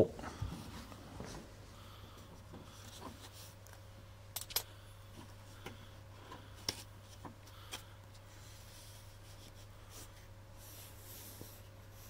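Faint, scattered small clicks and rubbing of a 10 mm socket and nut being worked loose by hand, over a low steady hum.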